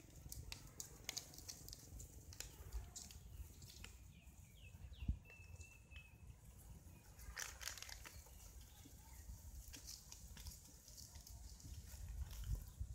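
Faint outdoor ambience: scattered light rustling and small clicks, with a few short high chirps and a brief held high squeak near the middle.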